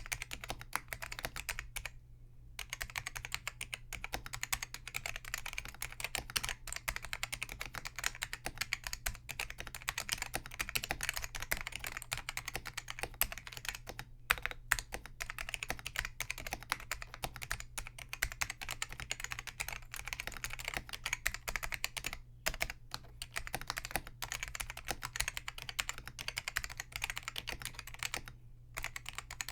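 Continuous fast typing on a Focus FK-2001 mechanical keyboard with Hua-Jie T1 Alps-clone switches, their click leaves removed so they are linearized but keep a strong tactile bump. Rapid key strokes with a few brief pauses.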